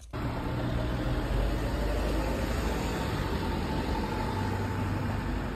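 Steady road traffic noise, a low rumble under an even hiss, starting abruptly with the cut.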